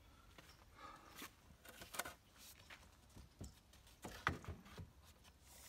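A few scattered light knocks and clicks, the sharpest cluster about four seconds in, from wooden stair stringers and a tape measure being handled while the stringers are measured against the house.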